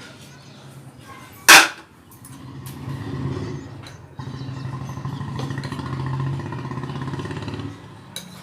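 A single sharp, loud knock about a second and a half in, then a motor's steady pitched hum that swells, dips briefly and comes back louder before fading near the end.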